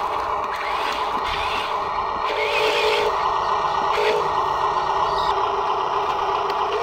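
Huina radio-controlled dump truck driving under load, a steady whine of its small electric drive motor and gears, briefly rising in pitch twice as it moves and turns.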